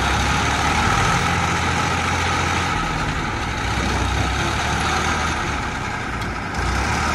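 Diesel engines of a farm tractor and a JCB backhoe loader running together, the tractor bogged in mud with a loaded trailer while the backhoe pushes it. The low engine note shifts slightly about a second in.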